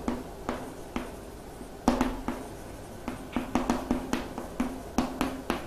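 Pen strokes and taps on a writing surface as a geometry diagram is drawn: a string of irregular sharp ticks, closer together in the second half.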